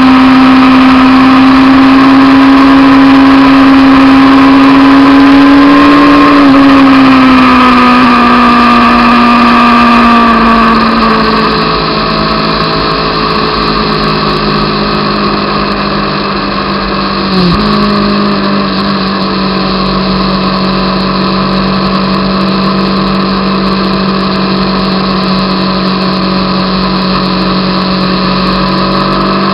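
Honda CBR600 F2's inline-four engine running at steady cruising revs. About six seconds in the revs ease off and sink over several seconds, then hold steady at a lower pitch, with a brief dip and jump in pitch about 17 seconds in.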